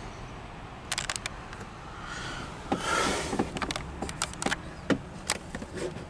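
Handling noise from a camcorder being moved around inside a vehicle: a quick run of sharp clicks, a short rustle, then scattered clicks and knocks.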